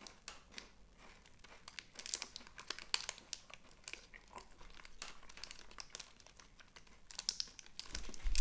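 Kit Kat wrapper crinkling and tearing as it is opened by hand, a quiet string of irregular crackles.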